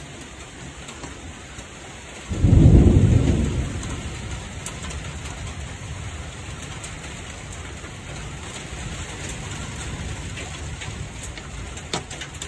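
Steady rain falling, with a sudden loud clap of thunder a little over two seconds in that fades over a second or two into a low rumble.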